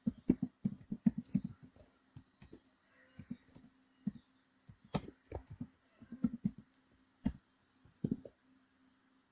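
Typing on a computer keyboard: short sharp key clicks in irregular bursts, a quick run at the start, another cluster a little past the middle, then a few single presses.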